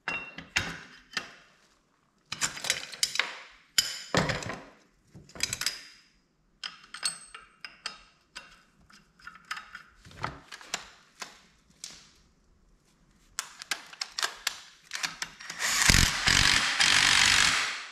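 Clinks and knocks of metal tools and clutch parts being handled. Near the end a cordless power driver runs for about two seconds, spinning the bolt into the primary clutch before it is torqued.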